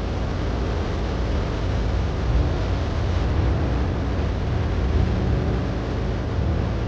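Motorboat engine running steadily with a low rumble, under a rushing hiss of water and wind.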